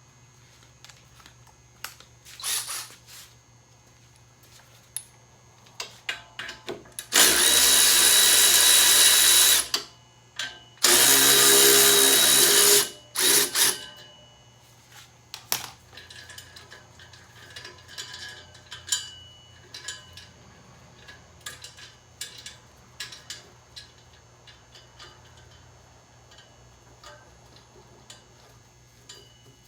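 Two bursts of a power tool, each about two seconds long, about seven and eleven seconds in, spinning out the exhaust bracket bolts on a Harley-Davidson touring bike. Light clicks and knocks of tools and parts being handled come before and after.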